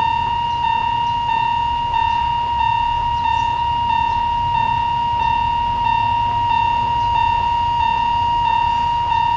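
Railway level-crossing electronic warning bell ringing, a high tone that repeats in an even pattern about every two-thirds of a second, signalling an approaching train. A low steady rumble lies beneath it.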